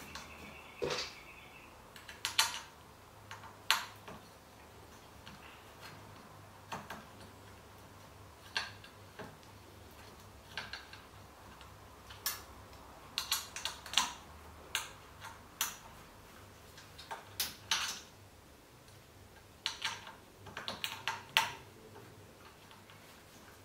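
Sharp, irregular metal clicks and clinks, some single and some in quick clusters, from hands working a wheel's hub fitting on the steel frame of a folding beach wagon.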